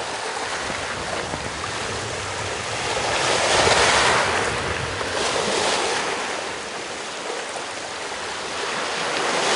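Water washing with a steady hiss, like waves, swelling about three to four seconds in and easing off again.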